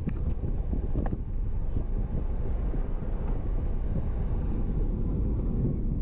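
Steady low rumble of tyres and engine inside a moving car's cabin at road speed, with wind on the microphone. A faint click about a second in.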